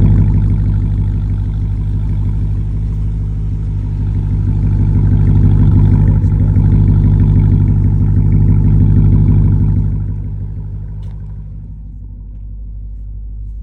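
Dodge Durango Hellcat's supercharged 6.2-litre V8 running on its stock exhaust with the mid muffler still fitted: a deep, steady rumble. It swells and eases, then drops quieter about ten seconds in.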